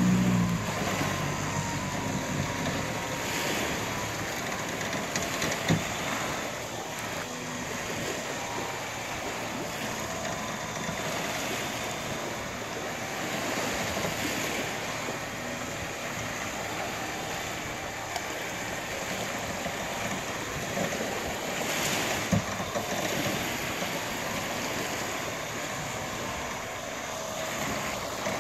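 Small gulf waves washing onto the beach and wind on the microphone, with an engine running low underneath. Two sharp knocks stand out, about six seconds in and again about twenty-two seconds in.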